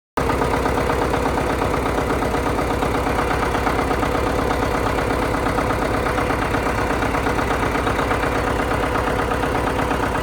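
A large engine idling steadily with an even low pulse, cutting in abruptly just after the start.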